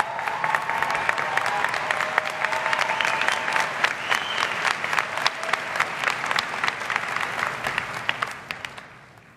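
Large audience applauding, with a few cheering voices, and the applause dying away near the end.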